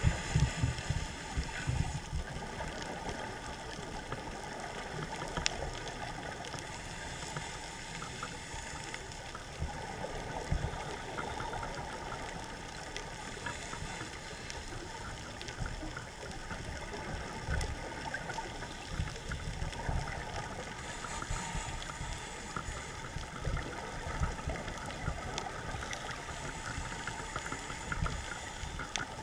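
Muffled underwater sound picked up by a diving camera in its housing: a scuba diver's exhaled bubbles gurgling in irregular low rumbling bursts, over a steady faint hum with a few scattered clicks.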